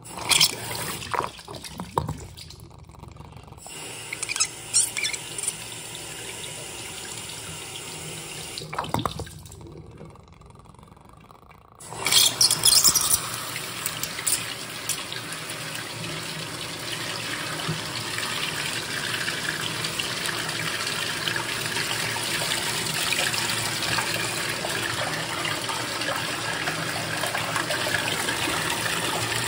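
Water rushing and splashing through a miniature model toilet bowl under an overpowered flush, pouring out into the sink below. There are a few sharp knocks in the first few seconds. About twelve seconds in, a loud, steady rush of water starts and grows slightly louder.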